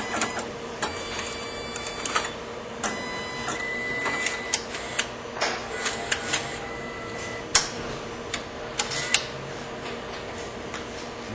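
Sankyo kiosk card dispenser and printer mechanism at work: sharp clicks and clacks from its feed mechanism, with two stretches of a steady motor whine, over a constant low hum. The clicking stops about 9 seconds in.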